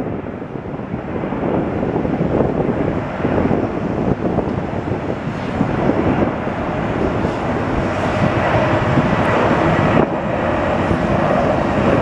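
Jet engines of a LATAM Cargo Boeing 767 freighter on the runway: a steady rushing noise that grows gradually louder, with a faint steady tone coming in during the second half.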